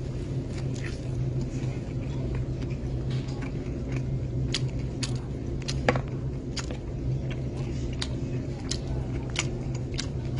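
A steady low hum with irregular light clicks and taps over it, about one or two a second, and one sharper knock about six seconds in.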